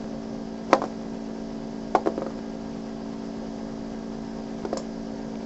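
Small plastic Gogo's Crazy Bones figurines being flicked on a cardboard board, giving a few light sharp clicks: one about a second in, a quick pair around two seconds, and one near the end. A steady low hum runs underneath.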